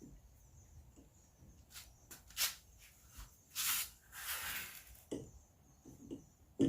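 Hand work on a car's coilover: a few short scraping rasps, the longest about half a second, followed by scattered light knocks and one sharper knock at the end.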